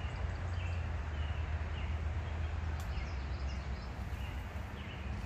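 Outdoor ambience: a bird giving short chirps about once a second over a steady low rumble, with one faint click about three seconds in.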